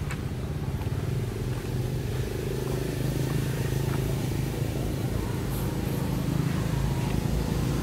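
An engine running steadily with a continuous low hum.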